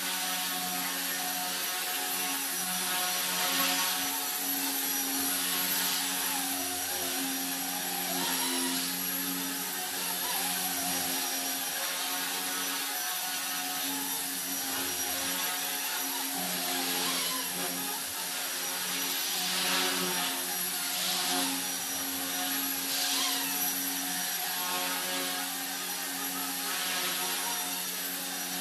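Blade mCP X brushless micro RC helicopter in flight: a steady buzzing whine from its motors and rotors that swells briefly several times as it manoeuvres.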